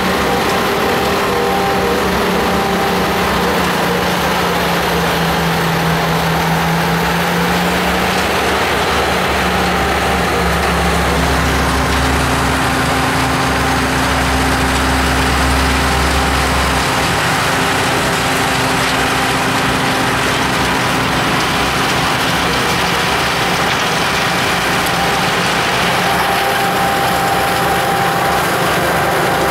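Rhaetian Railway rotary snow blower at work on the track: a loud, steady machine drone with engine tones. Its pitch dips and then settles a little higher partway through, while a deep rumble swells for several seconds in the middle.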